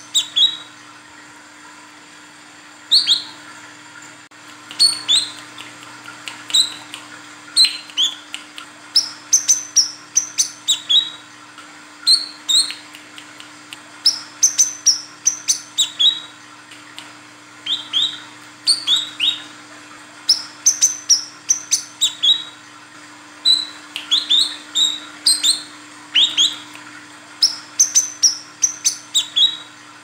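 Female brown-throated sunbird (kolibri kelapa) calling: short, sharp, high chirps, mostly in quick clusters of two to four, repeated every second or so.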